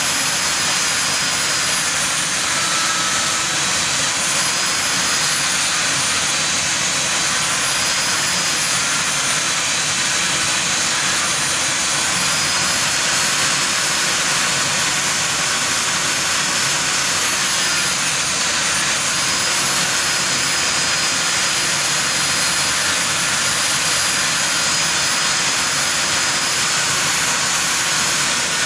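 Hand-held high-speed die grinder running steadily, a high whine over a dense hiss whose pitch wavers slightly as it bites. It is grinding metal off a rotary-engine rotor to take weight out and balance it.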